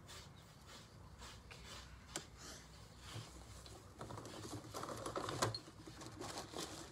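A stick of sidewalk chalk scraping on a concrete sidewalk in quick, repeated shading strokes, about three a second.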